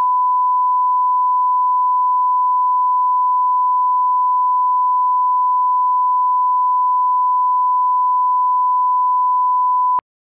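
1 kHz line-up tone played with colour bars: a single steady pure beep that cuts off abruptly about ten seconds in.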